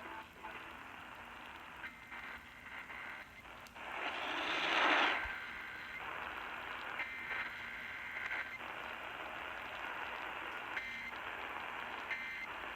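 Radio receiver hiss and static with no speech. A loud burst of static comes about four seconds in and lasts around a second, and faint short beeps sound now and then through the hiss.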